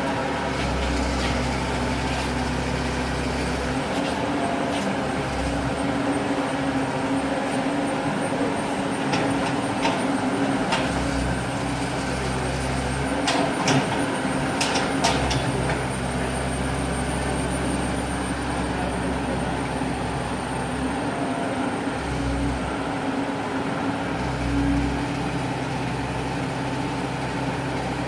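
Long-reach excavator's diesel engine running steadily, its low note swelling and dropping in stretches as the load changes. A few sharp knocks come about halfway through.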